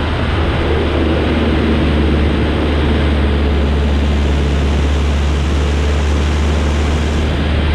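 Diesel engine of a heavy snow-plowing machine running steadily with a strong low drone, working under load as it pushes deep snow.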